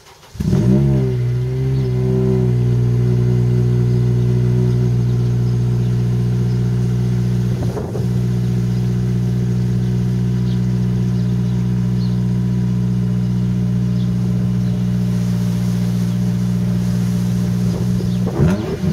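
Honda Civic Type R FN2's 2.0-litre four-cylinder engine, running through an aftermarket JPerformance exhaust, starting up. It flares briefly and settles into a steady idle within about two seconds, then begins to rev just before the end.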